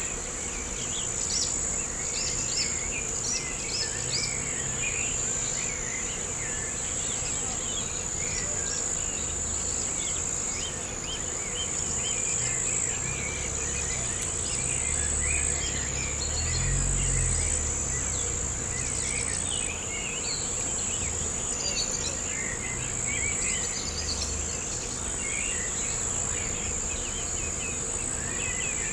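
Insects trilling in a steady, unbroken high-pitched chorus, with many short scattered chirps in the middle range and a low rumble that swells about halfway through.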